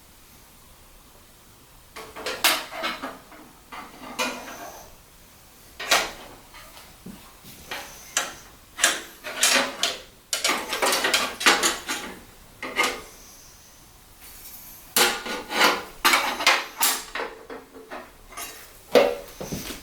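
Hard objects being handled and set down: irregular clatters and knocks in clusters, with a quiet gap of about a second and a half between groups.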